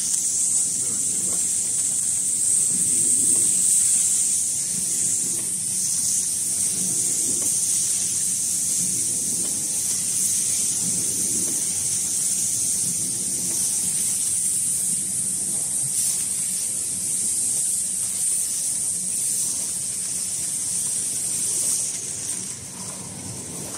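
Tomato sauce sachet packing machine running, a steady high hiss over a low hum, with the level dropping slightly near the end.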